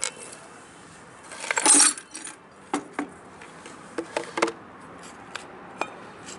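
Shards of a broken glass pane sliding off a wooden board and clattering down together about a second and a half in. This is followed by a handful of separate sharp clinks of glass pieces.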